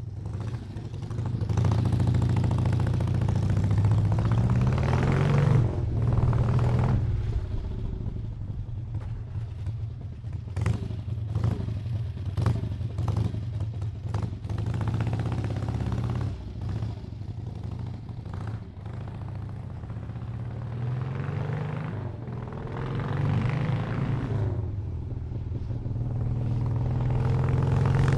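Harley-Davidson V-twin motorcycle engine idling with a deep, uneven rumble, revved up twice: once about five seconds in and again past twenty seconds. Between these revs, a run of sharp clicks sounds over the idling engine.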